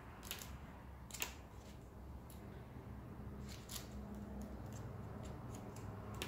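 Faint, scattered soft clicks and rustles of paper being handled, likely the card guidebook being leafed through, over a low room hum.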